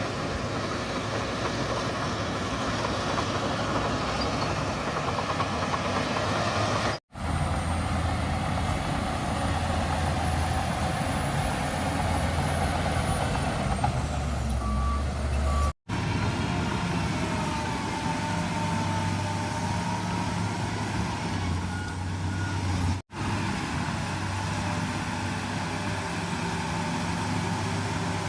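Komatsu bulldozer's diesel engine running steadily under load, with whining that slowly rises and falls, and a few short beeps. The sound cuts out abruptly three times and picks up again.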